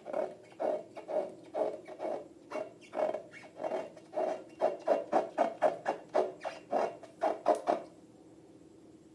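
Slime being squeezed and poked by hand, a run of short squelches about two to three a second, quickening near the middle and stopping about eight seconds in.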